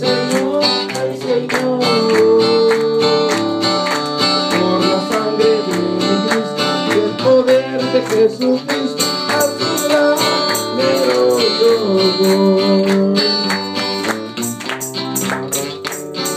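Live Christian worship music: a man singing a melody into a microphone over a strummed acoustic guitar, with a tambourine-like percussion beat.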